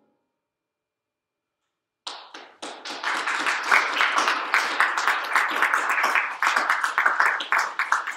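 Silence for about two seconds, then an audience breaks into applause and keeps clapping steadily.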